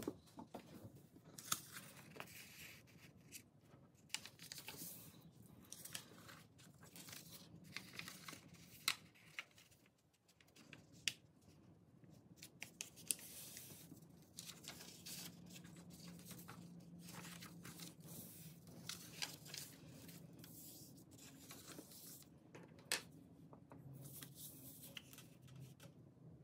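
A sheet of paper being handled and folded in half on a tabletop: quiet rustling and crisp creasing, with scattered sharp crackles.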